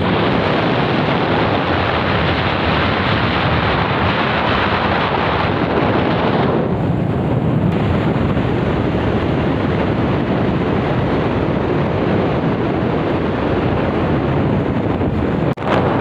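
Steady wind rushing over the microphone of a motorcycle moving at speed, drowning out other sound, with a brief dropout near the end.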